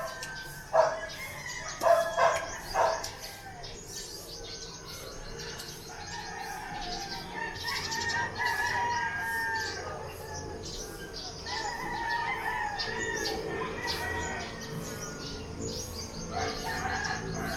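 Roosters crowing: three long crows in turn, the first about seven seconds in and the last starting near the end. A dog barks a few times in the first three seconds, and small birds chirp faintly.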